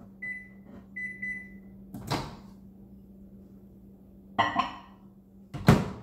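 Microwave oven keypad beeping as the cooking time is entered, a run of short high beeps in the first two seconds. A sharp knock follows about two seconds in, and two louder knocks come near the end.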